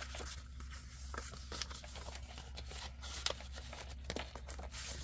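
Paper cards and journal pages rustling and tapping in a series of short, irregular handling noises as they are shuffled and turned, over a steady low hum.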